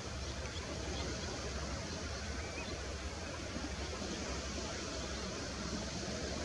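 Steady outdoor background noise: an even hiss over a low, unsteady rumble, with no clear calls or events standing out.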